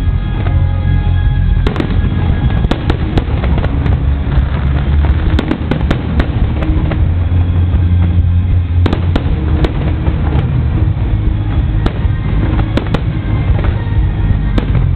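Aerial fireworks display: a rapid run of sharp bangs and crackles over a constant deep rumble of shell bursts, with music playing along.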